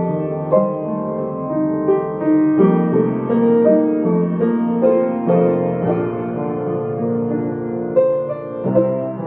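Slow, gentle piano music, sustained notes and chords changing about once a second.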